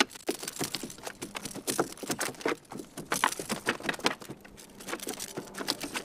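A fish being landed and handled on a kayak: an irregular run of taps, knocks and small splashes as it flops against the hull and the angler works the line.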